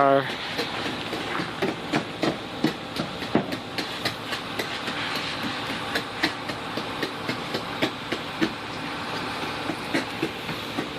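Outdoor ice-storm ambience: a steady hiss with irregular sharp ticks and cracks, a few each second.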